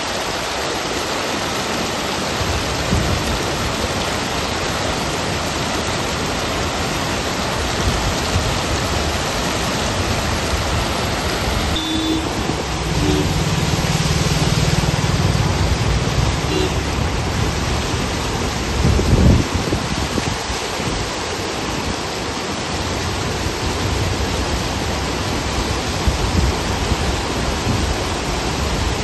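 Floodwater rushing and churning over a road edge, a steady noisy rush throughout. Near the middle a low engine hum joins for a few seconds, and a little later there is a brief low thump.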